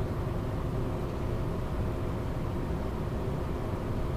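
Steady cockpit noise of a Cessna Citation Sovereign's twin Pratt & Whitney turbofans and airflow in the landing flare: an even rumble with a faint hum.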